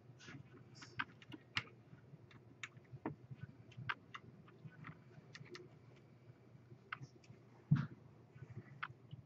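Faint, irregular light clicks and taps of an Allen key working the tiny mounting screws of a RAM water block as they are tightened, with one louder knock near the end.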